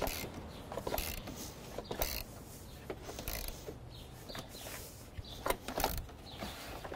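Ratchet wrench with a 10 mm socket clicking as a battery terminal clamp bolt is tightened, in short irregular runs of sharp clicks.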